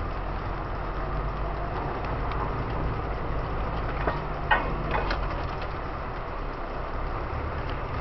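Off-road vehicle's engine running at low speed over a rough muddy track, heard from inside the cab as a steady low rumble. A few sharp knocks and rattles come about halfway through as the vehicle jolts over the ruts.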